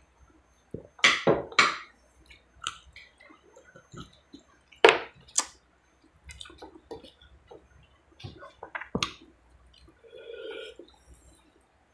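Mouth sounds of eating beef ribs and rice by hand: wet lip smacks, sucking and chewing, coming as scattered short smacks and clicks. There is a short low mouth sound near the end.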